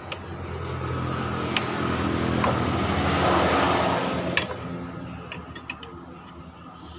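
A motor vehicle's engine swelling in loudness for a few seconds and then falling away, over a steady low engine hum. A single sharp click comes just after it fades.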